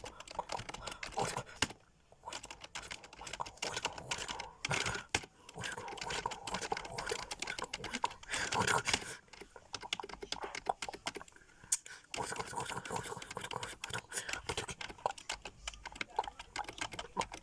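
Computer keyboard being typed on: rapid runs of keystroke clicks, with short pauses about two, five and twelve seconds in.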